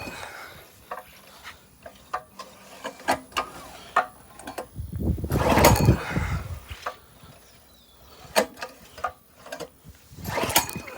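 Recoil pull-starter on a small gasoline pressure-washer engine being yanked twice, each pull a whirring swell of a second or so, with clicks and knocks of handling in between. The engine turns over but does not catch: it is choked and running on stale gas.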